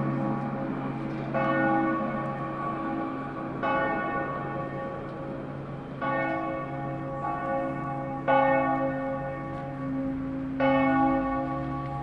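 Church bells ringing, with about six strokes at uneven intervals of one to two and a half seconds. Each stroke rings on under the next.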